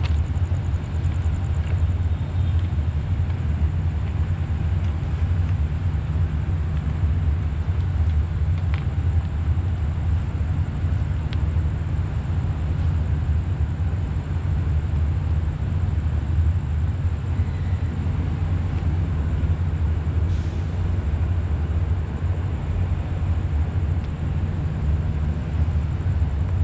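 Steady low engine rumble with a faint, steady high-pitched whine above it.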